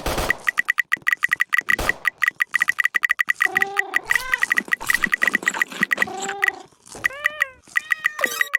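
Cats meowing in short, arched calls several times, over a fast, steady run of sharp high-pitched clicks or chirps.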